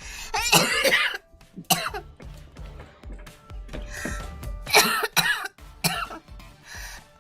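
A girl coughing repeatedly: a long harsh fit in the first second, then shorter single coughs and throat clearing spread through the rest, with music playing faintly underneath.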